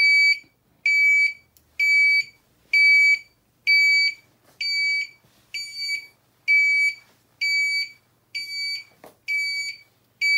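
Acoustic turn-signal flasher relay beeping steadily, one high-pitched beep about every second, each lasting about half a second, in time with the left indicator flashing.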